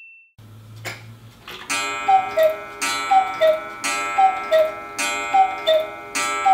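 Mechanical Black Forest cuckoo clock striking the hour: the bellows cuckoo call, two notes high then low, repeats about once a second, each call with a sharp metallic strike that rings on. A click from the mechanism comes about a second in, before the calls start.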